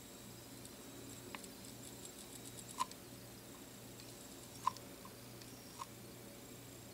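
A black-capped chickadee pecking at peanuts through a wire-mesh feeder: a quick run of faint ticks, then a handful of sharp, separate taps a second or so apart, over a faint steady hum.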